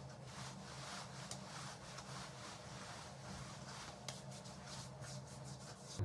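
Faint rubbing of hands spreading sunscreen over skin, soft strokes that come closer together about four seconds in, over a low steady hum.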